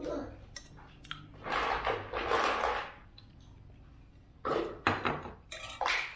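Metal spoon scraping and clinking against a ceramic bowl while the last of the soto is eaten, with a run of sharp clinks in the second half.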